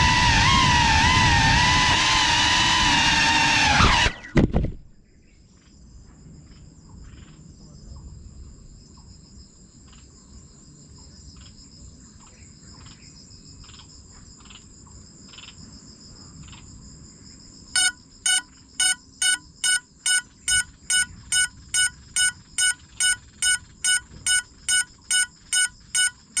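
GEPRC Cinelog35 FPV cinewhoop's motors whining loudly, pitch wavering with the throttle, until they cut off abruptly about four seconds in with a couple of jolts as the drone crashes to the ground. Insects then trill steadily in the background, and about eighteen seconds in the downed drone's lost-model beeper starts beeping a little over twice a second.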